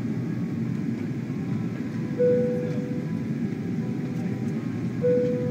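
Steady jet cabin noise inside a Boeing 747, the engines and airflow heard through the fuselage on descent. A short, clear ding sounds twice, about three seconds apart, each fading within a second.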